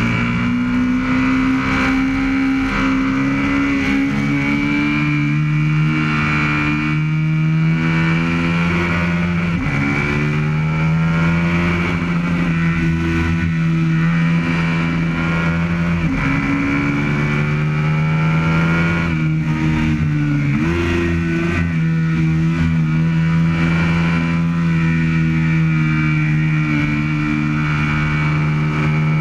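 Aprilia RSV Mille's 1000 cc V-twin engine running hard at track speed, heard from a camera behind the fairing with wind rush over it. Its pitch breaks and climbs again about 10, 16 and 20 seconds in as gears change.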